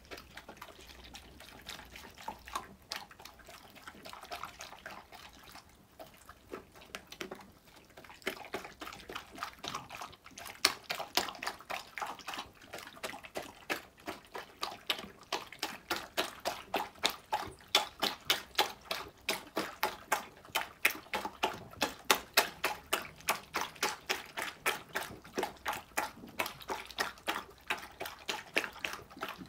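Dogs eating wet chicken and cabbage from bowls: rhythmic wet chewing and smacking, about four a second, sparse at first and louder and steadier after about ten seconds.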